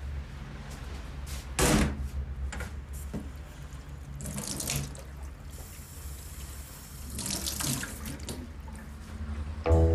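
Kitchen tap running into a stainless steel sink, water splashing in uneven spells as a person bends his head under it, with a few light knocks against the sink. Music starts just before the end.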